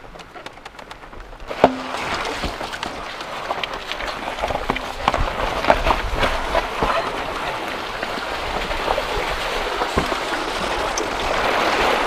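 Carabao (water-buffalo) cart jolting over a rough track: a steady rushing noise full of irregular knocks and rattles, which jumps in suddenly with a sharp knock about a second and a half in.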